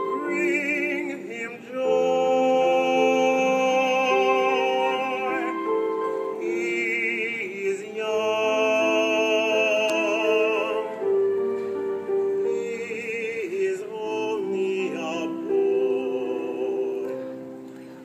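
Music: operatic-style singing with long held notes and wide vibrato, several notes sounding together, fading near the end.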